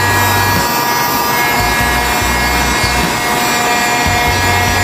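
A 2000-watt TOTAL heat gun running steadily: a fan whine with a few steady tones over a rush of air, and an on-and-off low rumble. It is heating faded plastic car trim to darken and restore it.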